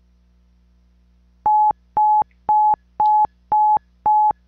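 Computer alarm-timer beeping as the countdown runs out: a single steady electronic tone pulsing on and off about twice a second, each beep about a quarter second long, starting about a second and a half in.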